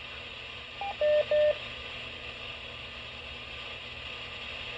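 Three short electronic beeps from a two-way radio about a second in, one higher followed by two lower, over steady radio hiss once the voice transmission has ended.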